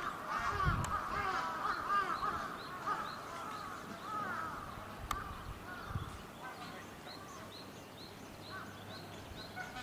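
Many overlapping animal calls, short rising and falling notes, thinning out about halfway through. A small high chirp repeats a few times a second later on.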